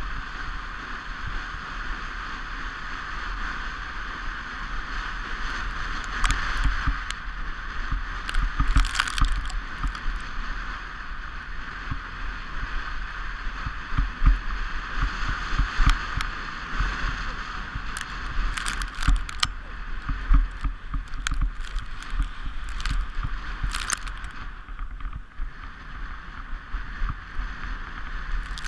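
A sport toboggan's runners hissing steadily over the packed snow of a sledding run, with a low rumble and frequent knocks and rattles from bumps along the way.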